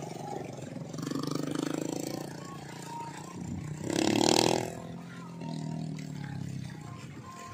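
Motorbike engine running as a homemade trail bike laden with a sack of harvested rice rides away and fades into the distance. A brief, louder burst comes about four seconds in.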